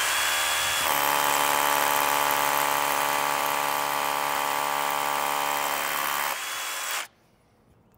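DeWalt 20V Max cordless rotary hammer drilling into a cement block wall. About a second in its sound changes to an even, buzzing pitch as the hammer action engages under pushing. That pitch drops out a little before the tool cuts off suddenly near the end.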